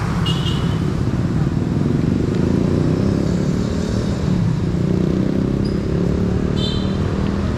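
Steady hum of motorcycle and car traffic on a city street. Two brief high-pitched chirps stand out, one just after the start and one near the end.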